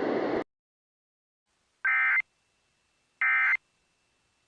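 Two short, identical buzzy data bursts, about 1.4 s apart, of an Emergency Alert System end-of-message code (the SAME 'NNNN' sent as a burst of warbling tones, a third burst following). Before them, a background hiss cuts off suddenly about half a second in.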